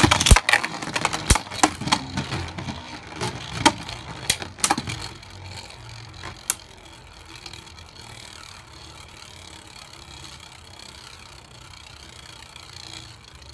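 Two Beyblade Burst spinning tops battling in a plastic stadium. Sharp clacks come one after another over the first five seconds or so as they collide, one more comes after about six seconds, then a steady whir as they keep spinning.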